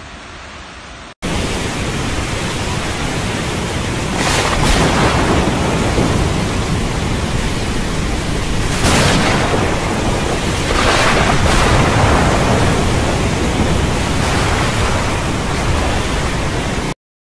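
Loud storm noise of wind and heavy rain: a dense, steady rush that starts abruptly about a second in, with several brief louder surges, and cuts off just before the end.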